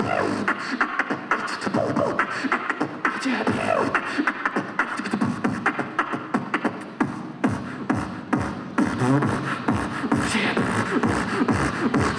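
Live beatboxing through a microphone: a fast drum-and-bass rhythm of vocal kicks, snares and clicks, with sliding, pitch-bending vocal sounds over it.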